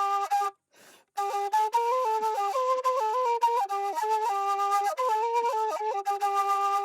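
A flute playing a melody of held notes that step up and down, with a brief silent break about half a second in.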